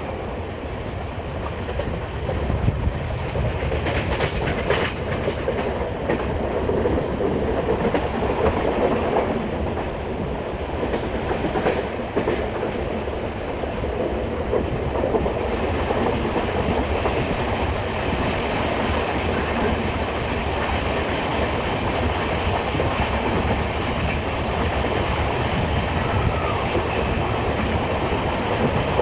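Passenger train coaches running along the line: a steady rumble with the wheels clicking over rail joints now and then.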